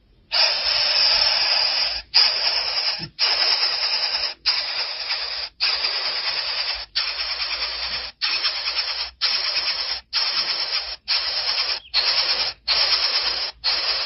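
Harsh hissing from nestlings in a nest, in about thirteen bursts of half a second to a second and a half, broken by brief gaps.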